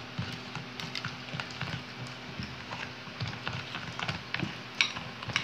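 Small metal spoons stirring thick, wet slime mixture in a ceramic bowl and a plastic tub: irregular light clinks and scrapes of spoon against bowl, with soft squelching.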